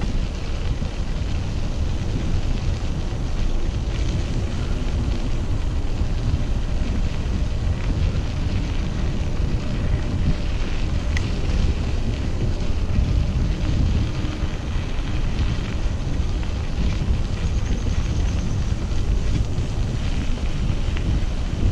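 Steady wind rumbling on the microphone.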